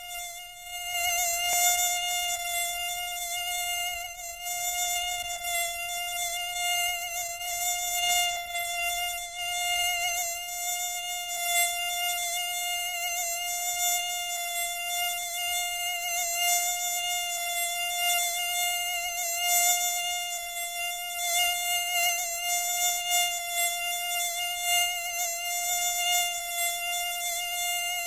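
A steady, high-pitched buzzing whine held at one pitch throughout, wavering slightly in loudness.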